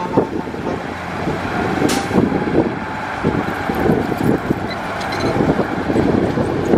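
Heavy diesel earth-moving machinery working: a bulldozer and dump trucks running with a dense, uneven rumble, with a sharp click about two seconds in.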